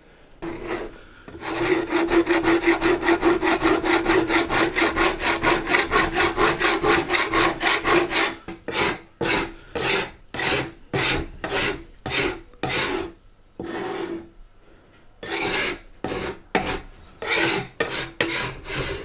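Sandpaper rubbed by hand across a wooden tabletop to take off old varnish. It starts with fast, even back-and-forth strokes, then slows to uneven strokes with short pauses about halfway through.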